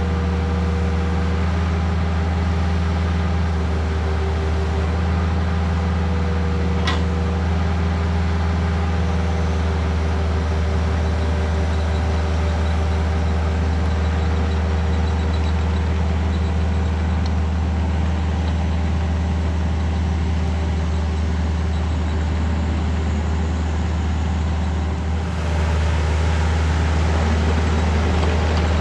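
Kubota excavator's diesel engine running steadily, with a sharp click about seven seconds in. It gets a little louder and brighter for the last few seconds.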